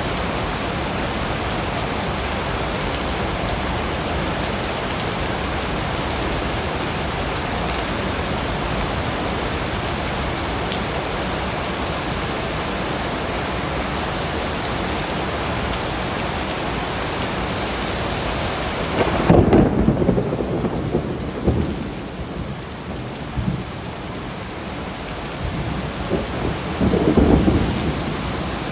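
Steady rain hissing. About two-thirds of the way in, the rain thins and thunder rumbles, with a second rumble of thunder near the end.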